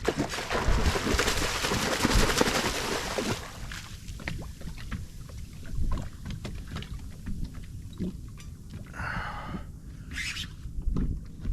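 Water splashing hard for the first few seconds as a hooked longtail tuna is brought to a small boat, then scattered knocks and scrapes against the boat.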